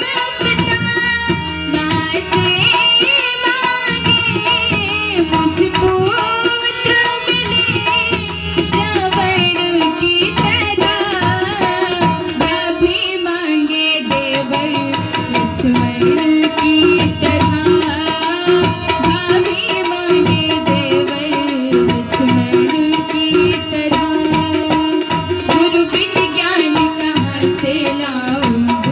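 A woman sings a Bagheli Ramayan folk bhajan, accompanied by tabla and harmonium.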